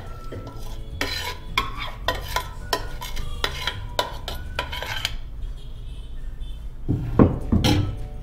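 Steel ladle scraping and clinking against a bowl as gravy is ladled into an aluminium cooking pot: a quick run of metallic clinks, then a louder clatter near the end.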